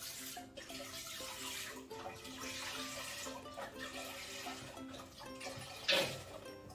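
Coconut milk pouring from a carton into a stainless steel pot, a steady splashing pour. About six seconds in, a short loud knock.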